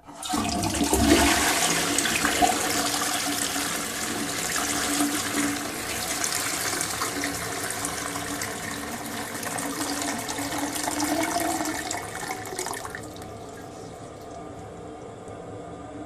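Toilet flushing: a sudden loud rush of water that runs for about thirteen seconds, then drops to a quieter steady hiss.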